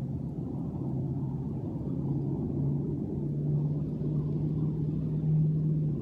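A motor vehicle's engine hum over a low rumble, the hum rising in pitch in a few steps and loudest near the end.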